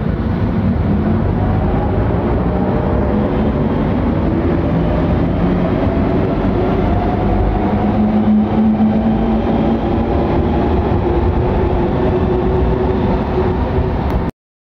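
Bombardier/CAF NM-02 rubber-tyred metro train pulling out of the platform and accelerating away, a steady rumble with a whine that rises slowly in pitch as it gathers speed. The sound cuts off suddenly near the end.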